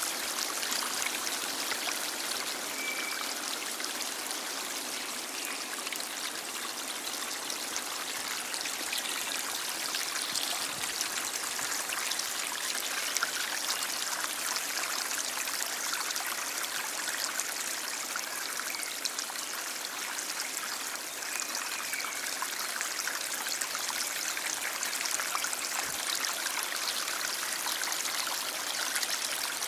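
Stream water flowing steadily: an even rushing hiss, mostly high and with little low rumble.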